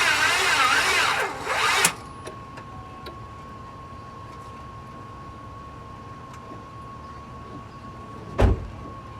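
Car starter motor cranking the engine slowly, with a rhythmic rise and fall, then stopping about two seconds in without the engine starting. After that a faint steady high tone is left, and a single thump comes near the end.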